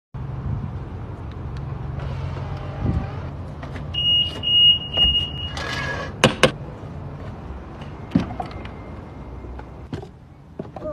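Rolls-Royce coupé: a steady low hum, a high electronic beep held for about a second and a half near the middle, then a few sharp clicks and knocks as the car's grille and door trim are handled.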